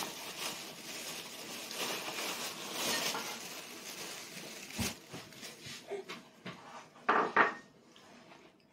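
Light knocks and clinks of tableware during a meal: a sharp click just before five seconds in, a few small ticks, then two louder clatters close together about seven seconds in, over faint room hiss.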